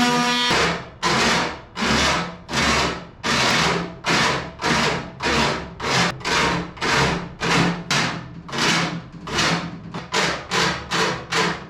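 Hand file worked back and forth over aluminium, in even rasping strokes about two to three a second, smoothing a freshly cut edge. Just after the start a steady humming tone stops.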